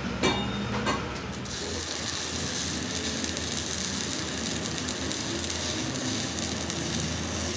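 Stick (shielded metal arc) welding on a steel axle shaft: the arc crackles and sizzles steadily. A couple of sharp knocks come in the first second, and the crackle sets in about a second and a half in.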